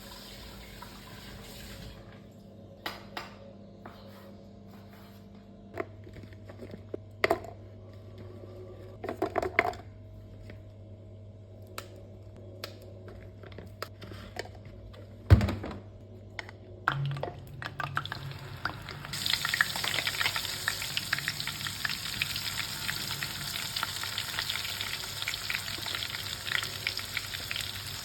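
Scattered knocks and clatter of kitchen utensils over a low steady hum, the loudest a single sharp knock about halfway through. About two-thirds of the way in, food starts frying in hot oil: a dense, steady sizzling crackle.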